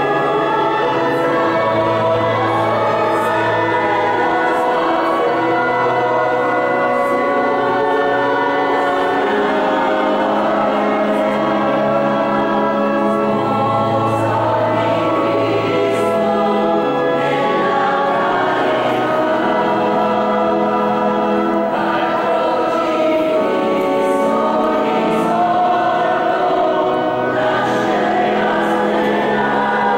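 A choir singing a slow sacred hymn in long, held chords.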